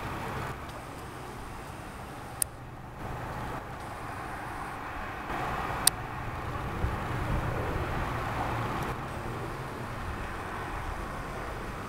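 Steady outdoor ambience of distant road traffic, a low hum with a general haze of city noise. Two sharp clicks cut through it, about two and a half and six seconds in.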